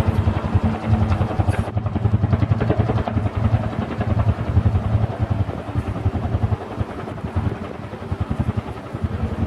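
Bell UH-1H Huey helicopter running close by: its two-bladed main rotor beats in a rapid, even thud over the turbine's noise. It eases slightly in level near the end.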